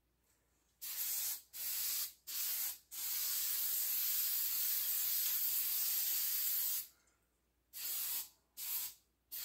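Aerosol can of high-heat spray paint hissing in bursts: three quick sprays, then one long spray of about four seconds, then two more short ones.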